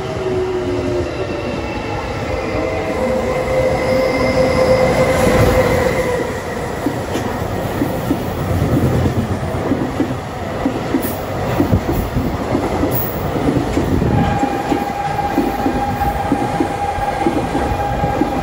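Freight train rolling past at close range: the wagons' wheels rumble and clatter over the rail joints, with thin, steady wheel squeal. The clattering grows denser about halfway through, and a new squeal sets in about three-quarters of the way through.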